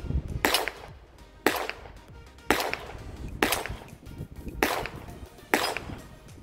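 Six shots from a Browning Buck Mark .22 LR semi-automatic pistol, fired about a second apart, each a sharp crack with a short ring after it.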